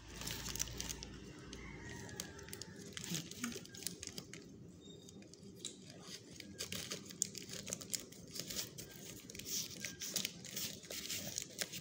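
Plastic courier mailer bag crinkling and crackling as it is handled and cut open along its top edge with scissors, in irregular sharp snaps and rustles.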